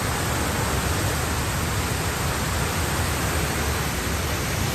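Water jetting from a burst water main, a steady loud rushing noise.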